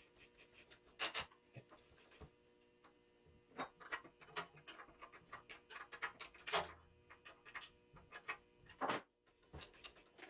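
Irregular metal clicks and clinks of change gears and a wrench being handled while the gear train on a Grizzly mini lathe is changed, with louder knocks about a second in, midway and near the end.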